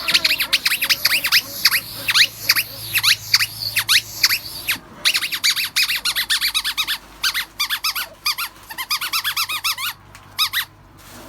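Squeaky rubber dog toy being chewed by a puppy, giving rapid high-pitched squeaks, several a second, with a brief pause about five seconds in; the squeaking stops near the end.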